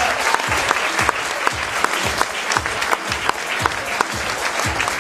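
Audience applauding over music with a steady bass-drum beat, about two beats a second.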